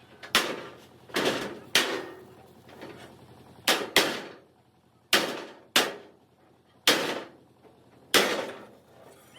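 Hammer blows on steel in a fabrication shop: about nine sharp strikes at uneven intervals, each ringing briefly before it fades.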